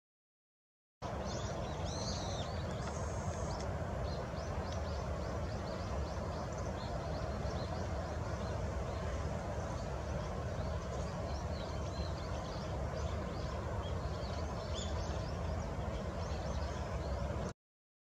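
Steady low outdoor background noise with faint high chirps and ticks scattered through it, a slightly stronger cluster of chirps about two seconds in. The sound cuts in about a second in and cuts off abruptly near the end.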